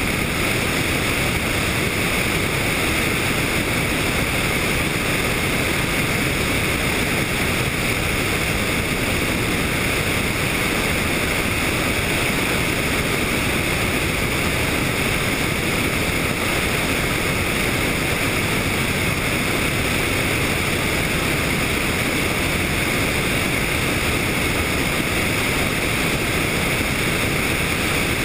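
Helicopter in flight, heard as a steady, loud rush of engine and wind noise on the camera's microphone.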